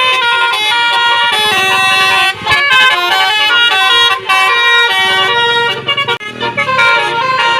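Indonesian bus 'telolet' multi-tone horn playing a loud melody, several horn notes sounding together and stepping in pitch, with short breaks about two, four and six seconds in.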